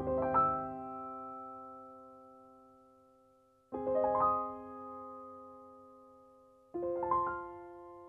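Slow, soft solo piano music: three rolled chords about three seconds apart, each left to ring and fade away.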